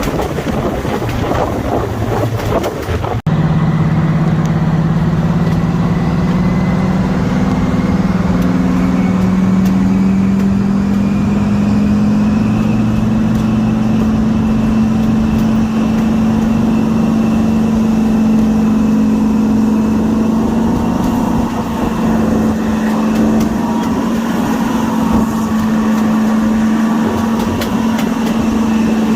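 Class 55 Deltic locomotive's Napier Deltic two-stroke diesel engines working hard under power, heard from onboard the train. The deep engine note, with a high whine above it, rises slowly in pitch for several seconds after a brief break about three seconds in, then holds steady.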